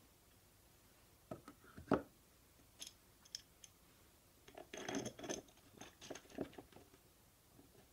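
Wooden jig parts being handled on a workbench: a sharp wooden knock just before two seconds in as a block is set down on the base, then a few light ticks. Later comes a cluster of clicks and scraping as a knobbed threaded metal rod is fitted into the block.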